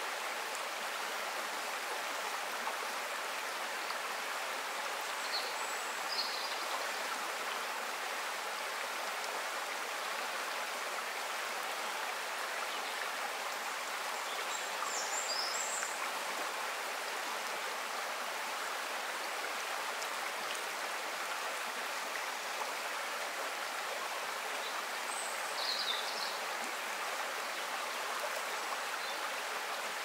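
Shallow forest stream flowing steadily over stones, an even rush and babble of water. A few brief high chirps come through about three times.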